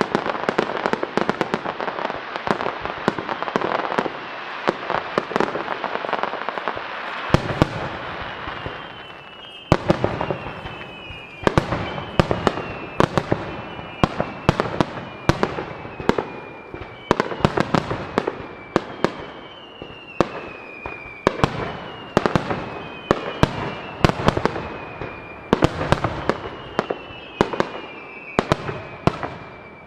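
Starmine fireworks barrage: rapid aerial shell bursts with dense crackling for the first several seconds, then a string of sharp bangs about a second apart, mixed with repeated whistles that fall slightly in pitch.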